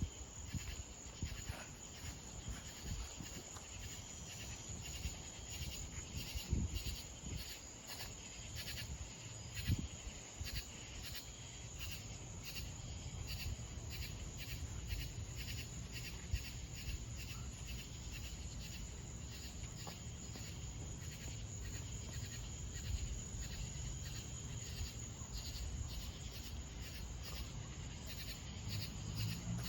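Insects chirping in a steady, evenly repeating rhythm over a continuous high-pitched drone, with a low rumble underneath.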